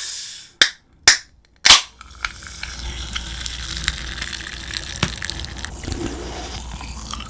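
Aluminium can of sparkling drink cracked open: a sharp pop and hiss as the tab breaks, then three more quick hissing pops within the first two seconds. After that the carbonation fizzes steadily with many small crackles.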